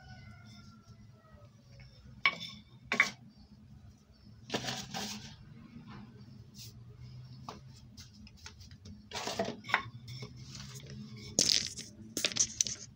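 Scattered sharp taps, knocks and rubbing as flattened dough is handled and rolled with a wooden rolling pin on a hard tiled floor, some coming in quick clusters, over a low steady hum.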